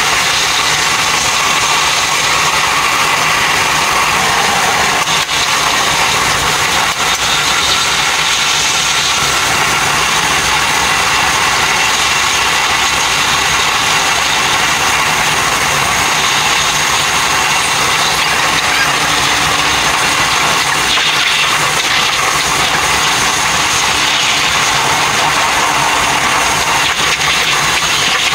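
Steady running noise of a train at speed, heard from inside the cab, played back sped up fourfold so it is a continuous high rushing sound.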